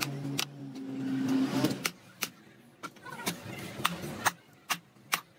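Sledgehammer repeatedly striking scrap engine blocks to break them up: sharp metallic blows about twice a second. A steady low engine hum runs under the first second and a half, then stops.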